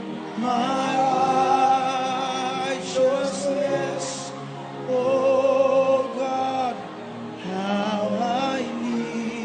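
Worship music: a singer holding long notes with vibrato over sustained chords, in phrases of a second or two.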